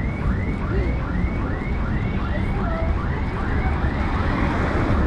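An electronic siren-type alarm repeating a short rising-and-falling whoop about two to three times a second, over loud low street noise. The whoops fade out about four seconds in.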